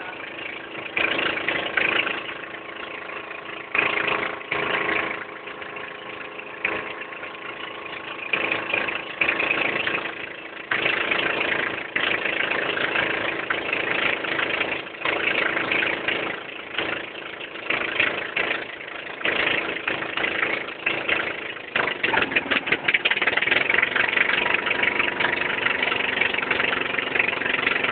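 Engine of a motorized outrigger boat (bangka) running steadily under way, with rushing wind and water noise that swells and drops irregularly and grows louder near the end.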